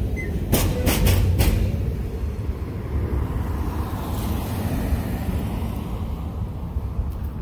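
A few clacks of freight car wheels over rail joints at the start, as the train moves away. Then a car drives past, its tyre and engine noise swelling and fading around the middle, over a steady low wind rumble on the microphone.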